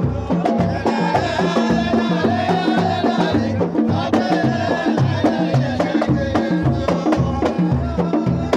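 Samri folk music: frame drums beating a steady low beat about three strokes a second under group singing, with sharp claps cutting through.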